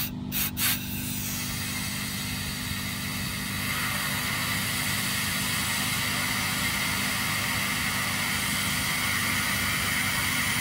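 A small engine running steadily with a hiss, dipping briefly twice at the start before settling into an even run.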